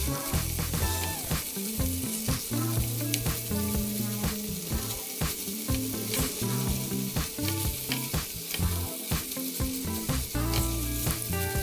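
Salmon fillets frying in coconut oil in a nonstick pan, a steady sizzle, with a spatula repeatedly scraping and breaking the flesh into small pieces. Background music plays underneath.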